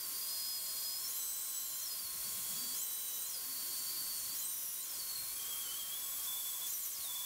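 Festool Domino DF500 joiner running with a high whine while plunging mortises for 5x30 dominoes into 18 mm plywood, its pitch jumping higher for a moment several times as each cut is made. A steady hiss from the dust extraction runs underneath.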